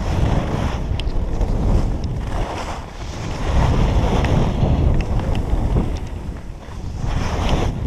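Wind buffeting the action camera's microphone while skiing downhill, a loud rumbling rush that surges and eases every couple of seconds, with skis hissing over the snow.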